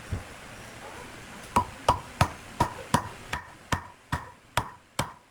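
Hammering in a steady series of sharp knocks, about three a second, starting about a second and a half in, after a single knock at the start.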